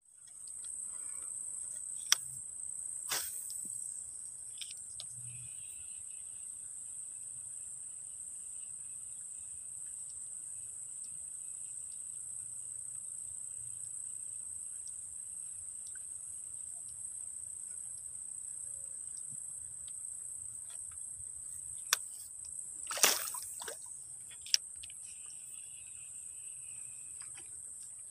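Steady high-pitched drone of insects calling, with a second, lower insect chorus joining for stretches. A few short sharp clicks or knocks break in, the loudest about five seconds before the end.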